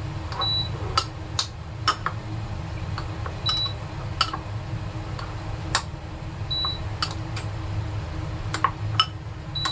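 Irregular clacks of a pestle working in a small mortar, grinding garlic, kencur, chili and sugar with tamarind water for pecel peanut sauce. A short high beep sounds about every three seconds over a steady low hum.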